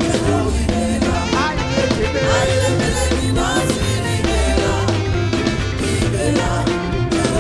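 Gospel praise-and-worship music played by a band, with drum kit, bass and singing voices, at a steady level.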